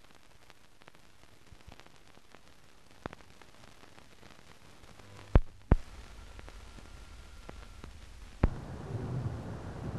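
Faint hiss of a silent film transfer, with a few sharp clicks, the loudest two close together about halfway through, and a low hum that comes in with them and grows louder near the end.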